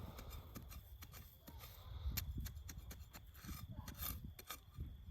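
Scraping and crackling of dry soil and garlic stalks as a garlic bulb is dug and pulled out of a garden bed, with many sharp crackles.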